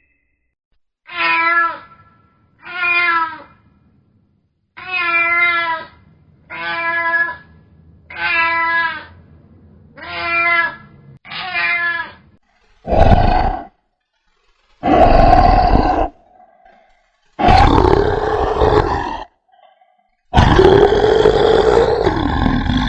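Farm animal calls: seven short, wavering calls spaced about a second and a half apart, then four louder, rougher calls, each lasting one to two and a half seconds.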